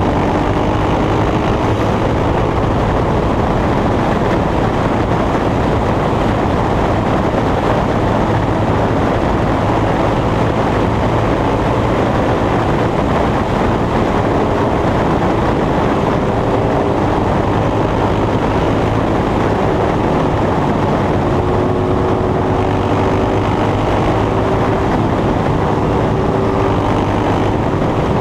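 Sawmill machinery running with a loud, steady engine drone and faint tones that drift slightly in pitch.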